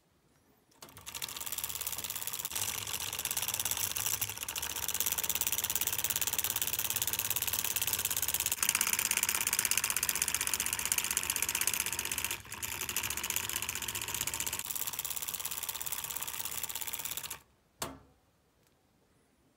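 Homemade solenoid engine running: the coil's plunger and contact switch clicking so fast they make a dense mechanical rattle as the flywheel spins. It starts about a second in, falters briefly about two-thirds of the way through, and stops suddenly near the end, followed by a single click.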